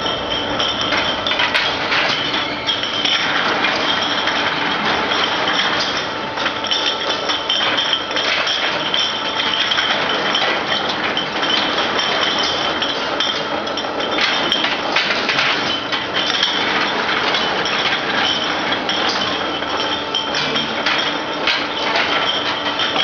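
Glass wine bottles clinking and rattling against each other as they run through a bottle washing machine: a steady, continuous clatter of many small glassy knocks.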